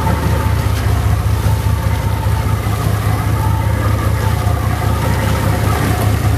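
Boat engine running steadily, a low drone, with water rushing and splashing past the hull.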